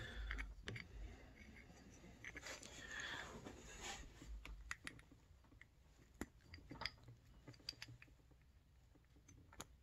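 Faint, irregular small clicks and rustling as fingers work the spring and keeper of a snowmobile exhaust power valve (Arctic Cat APV) to pull it apart, with a few sharper clicks in the second half.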